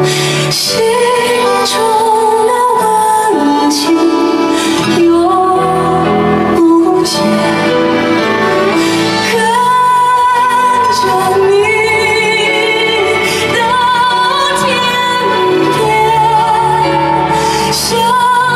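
A male singer with a high, clear voice sings a slow, melodic ballad over instrumental accompaniment, holding long notes with vibrato.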